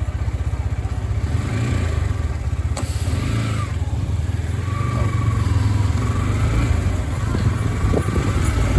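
Motorcycle engine running while riding, a steady pulsing low rumble heard from on the bike.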